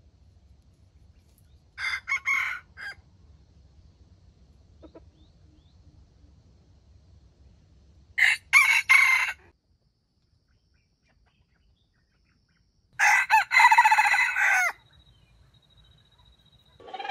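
Red junglefowl rooster crowing three times, several seconds apart, the last crow the longest.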